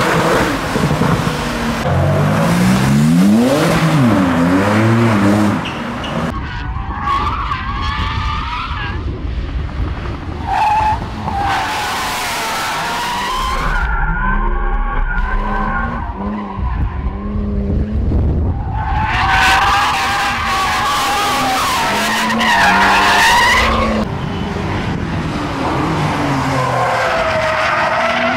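Porsche 911 Turbo S twin-turbo flat-six accelerating hard, its pitch climbing and dropping back several times through the gears. Then tyres squeal in long wavering howls as the car drifts, with the engine running under the squeal.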